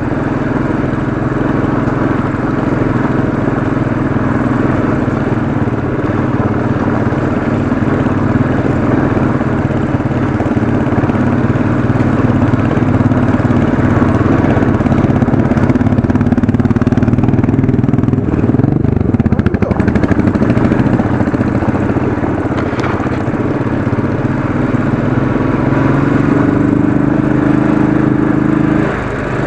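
Royal Enfield Classic 500's single-cylinder engine pulling steadily up a steep dirt climb. The revs dip briefly about two-thirds of the way in, climb again near the end, then drop off suddenly.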